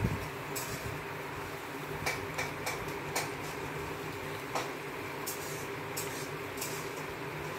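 A dog eating rice from a stainless-steel bowl: irregular short clicks and clinks of its teeth and muzzle against the bowl, over a steady background hum.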